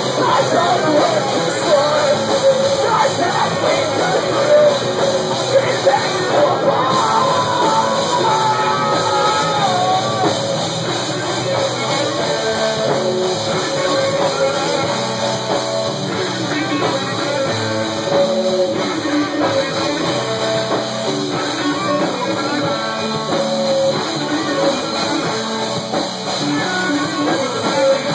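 Live rock band playing loud, close up in a small room: electric guitar and drum kit, with singing over it.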